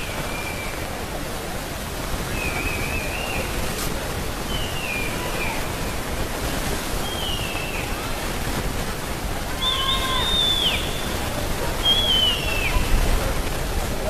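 A steady rushing hiss of open-air noise, with a few short high falling calls every couple of seconds; the two calls in the second half are the loudest.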